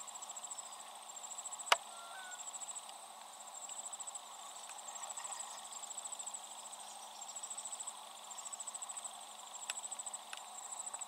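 Insects chirping in rapid high-pitched trills about a second long, one after another. There is a single sharp click about two seconds in and two fainter clicks near the end.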